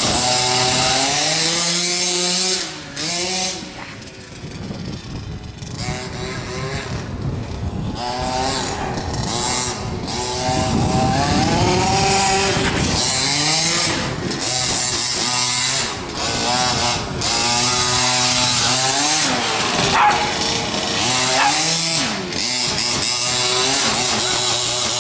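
Radio-controlled buggy's small two-stroke engine revving up and down as the car drives, its pitch rising and falling again and again. It drops in level about three seconds in, then builds back up.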